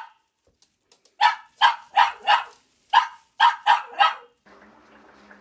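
A dog barking: about eight sharp barks in two quick runs, four then four. Near the end the barking gives way to a faint steady hum.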